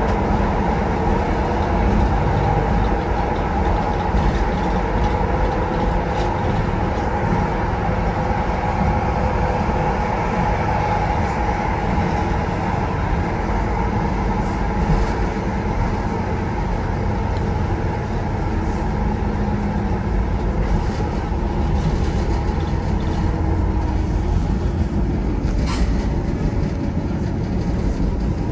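Tyne and Wear Metro Class 994 Metrocar running along the line, heard from inside the car: a steady rumble of wheels on rail under a whine that fades away part way through. A single sharp click near the end.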